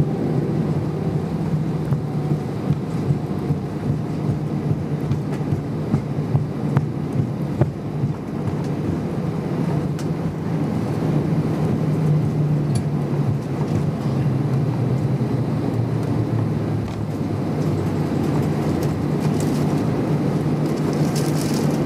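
Cabin noise of an Airbus A319 airliner slowing down on a wet runway after landing: a steady low rumble from the aircraft rolling on its landing gear and the engines running, with small irregular bumps.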